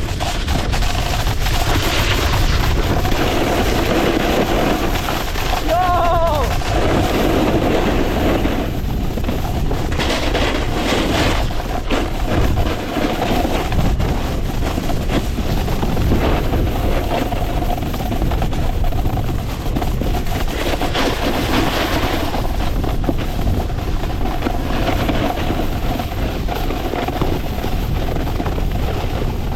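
Snowboard scraping and chattering over hard, bumpy snow on a fast descent, with wind buffeting the microphone in heavy thumps and rumble.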